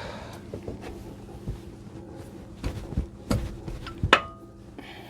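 Metal tools knocking and clinking against metal, several separate strikes. The loudest comes about four seconds in and rings briefly.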